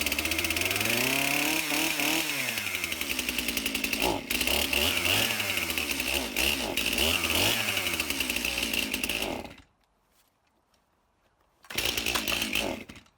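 Stihl MS271 Farm Boss two-stroke chainsaw cold-started on full choke, running with its revs rising and falling, then stalling out; it fires again briefly near the end and dies. The saw is cold and reluctant to keep running on full choke.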